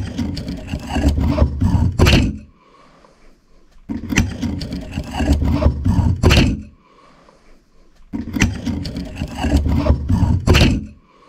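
A harsh, scraping noise about two and a half seconds long, heard three times with quiet pauses between, the same stretch replayed. It is presented as an EVP, a weird voice that the ghost hunter hears as saying "I've had enough now".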